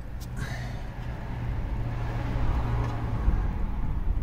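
A road vehicle passing by: a steady engine hum and tyre hiss that swell, then the hum stops about three seconds in.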